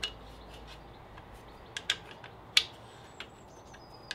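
Sharp, separate plastic clicks and knocks as the drain plug is fitted back into the base of a MagnaClean Professional 2 magnetic filter canister, about half a dozen in all, the loudest about two and a half seconds in.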